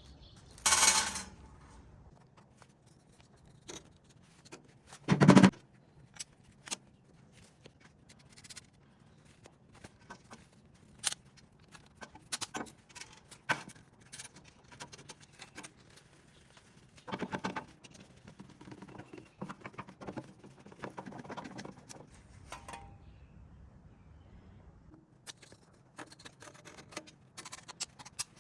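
Scattered clicks, taps and scrapes of hand work on steel saw stock, with two louder knocks about one and five seconds in.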